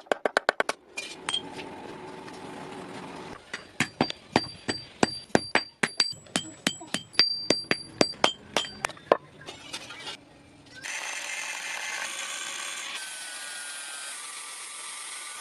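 Hammer blows on hot metal at an anvil: a quick run of strikes, then a longer series of about three blows a second, many leaving a high metallic ring. In the last few seconds there is a steady rushing noise instead.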